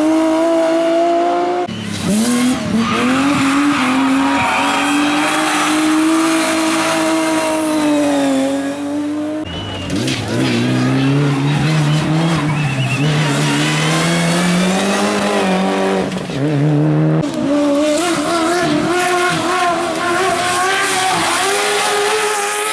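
Hill-climb race car engines at high revs, their pitch rising and falling through gear changes, in several clips cut one after another.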